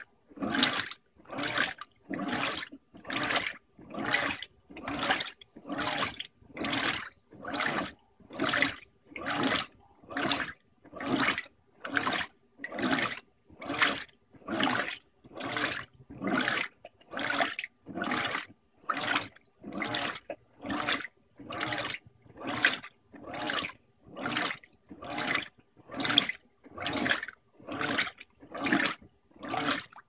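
Electrolux 16 kg top-load washer agitating two blankets in soapy water at medium water level: a regular slosh of water with each agitator stroke, about one a second, with short pauses between.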